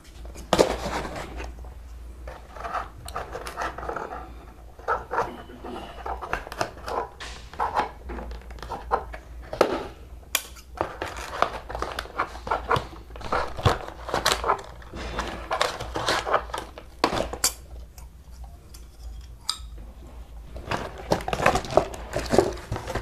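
A cardboard box being cut and opened by hand with scissors: irregular clicks, snips, scrapes and rustles of cardboard.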